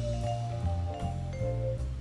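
Background music: a mellow tune of held melody notes over a steady bass line, with a few light percussion hits.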